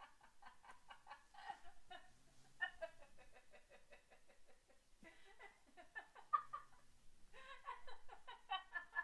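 Women laughing in repeated bouts of quick, pitched pulses, about four bouts with short pauses between them.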